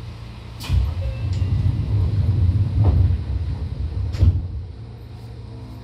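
Low rumble inside a Seibu 2000 series electric train. The rumble swells louder for about three and a half seconds between two sharp knocks.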